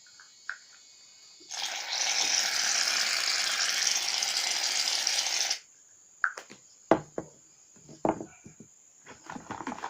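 Aerosol can of shaving foam spraying: one steady hiss of about four seconds that cuts off suddenly, followed by a few sharp clicks and taps.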